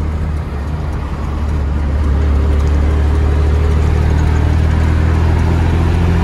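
Diesel engine of a Mercedes-Benz 1113 truck, fitted with a comb in the turbo, running on the road as heard from inside the cab. It dips briefly about half a second in, then grows louder from about two seconds in and holds steady.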